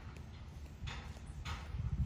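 Footsteps, each a short scuff about half a second apart with a break in the middle, over a low rumble that swells near the end.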